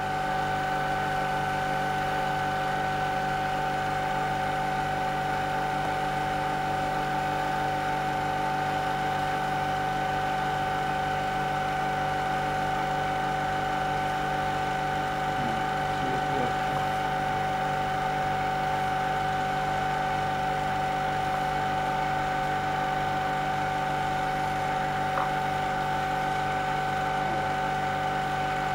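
Steady electrical hum with a constant high whine and a faint regular pulsing underneath, from a running Tesla coil driving a plasma discharge in a neon bulb.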